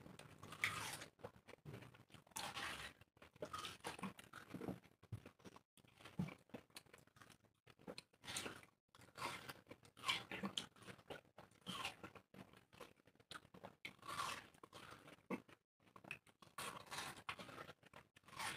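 Two people biting into and chewing wedges of fresh watermelon, with irregular bites about every second or so.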